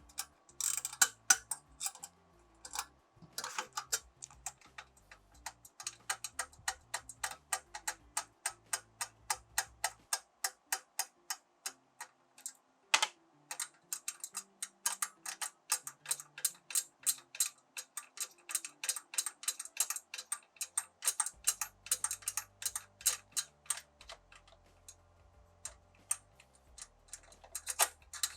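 7/16 inch socket ratchet clicking in a long steady run of quick, even clicks, a few a second, as it runs the keeper nuts on a clamp-on precision mount.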